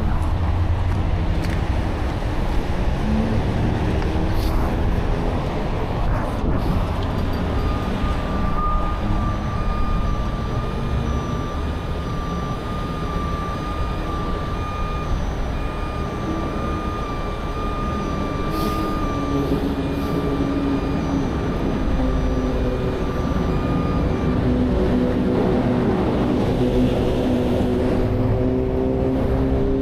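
Heavy diesel trucks running with freeway traffic going by, a steady low rumble. A high electronic warning beeper sounds from about eight seconds in until near the end. Toward the end a big diesel engine rises in pitch as it speeds up.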